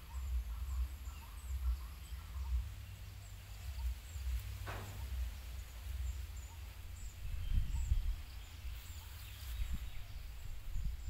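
Outdoor rural ambience: birds chirping faintly and high, with one call falling steeply in pitch about four and a half seconds in, over a continuous low rumble.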